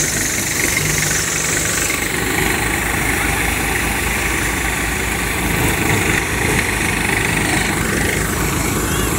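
Sonalika tractor engine running steadily under load as it drives a Samrat thresher through its power take-off. The engine's drone and the thresher's rattle blend into one continuous machine sound with a fast low pulse.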